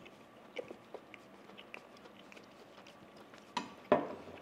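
A man chewing a bite of ribeye steak: faint, scattered small mouth clicks, then two sharper clicks near the end.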